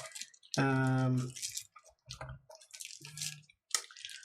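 A man's voice making a drawn-out held vowel about half a second in, then short low murmurs, among soft clicks and hissy noises.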